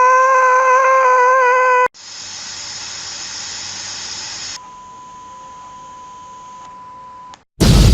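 A string of edited-in sound effects. First a held tone swoops up in pitch and cuts off about two seconds in. A hiss follows, then a thin steady beep-like tone. Near the end comes a sudden loud boom like an explosion.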